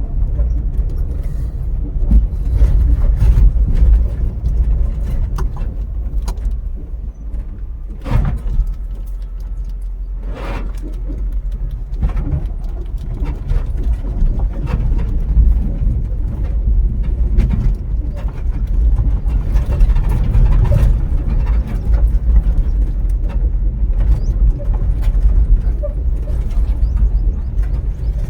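Car driving on a rural road: a steady low rumble of road and engine noise, broken by frequent knocks and rattles as it goes over bumps, with a couple of louder knocks about 8 and 10 seconds in.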